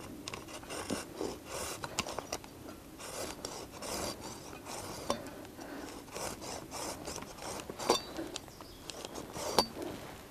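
Folding hand saw working back and forth in short strokes, rasping an angled notch into a wet, freshly peeled stick; the wet wood makes the cut slow going. A few sharp clicks come among the strokes, the loudest two near the end.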